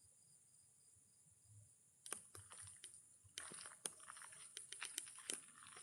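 Irregular crunching and crackling of dry leaves and twigs underfoot as someone walks up to a tree, starting about two seconds in and growing denser. Behind it runs a steady high drone of night insects.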